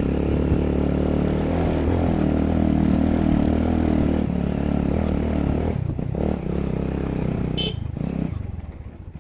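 Motorcycle engine running steadily under throttle while riding, then easing off with uneven revs and the level falling away near the end. A brief high squeak about three-quarters of the way through.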